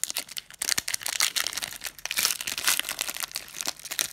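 Foil wrapper of a 2017 Panini Prestige football card pack being torn open and crinkled by hand, a dense run of sharp crackles and rustling.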